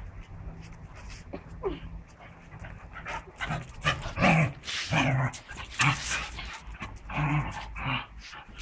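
Two beagles play-fighting, making short, rough growling noises in a quick run of bursts from about three seconds in.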